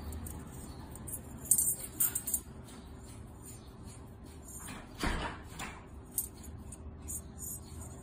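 Handling noise from metal and ceramic flame rods being picked up and turned in the hand: a quick cluster of sharp metallic clinks about one and a half to two and a half seconds in, a dull bump about five seconds in, and a few small clicks after, over a faint steady hum.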